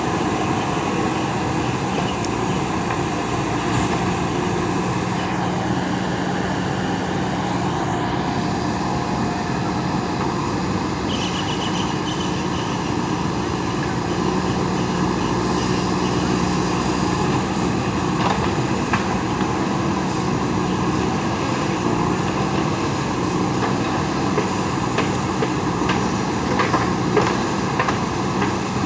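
Diesel engine of a JCB 3DX backhoe loader running steadily under work, with several sharp knocks in the second half.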